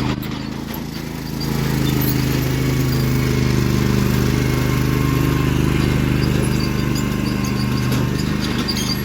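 A vehicle engine running steadily, getting louder about one and a half seconds in and then holding even.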